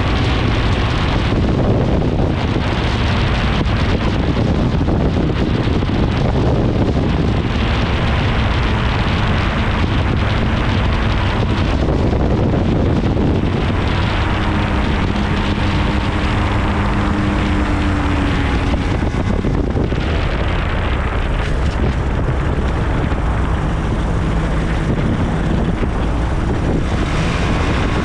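Challenger II ultralight's engine and propeller running steadily, with heavy wind buffeting on the microphone; the engine note shifts a little now and then.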